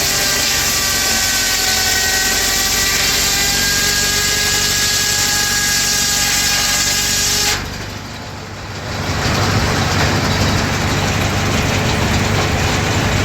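Circular sawmill blade cutting through a log: a loud ripping hiss with a steady whine, the blade belt-driven by a 1931 Ford Model A four-cylinder engine. The cut ends about seven and a half seconds in, the sound drops away, and the engine's steady low running comes back up a second or two later.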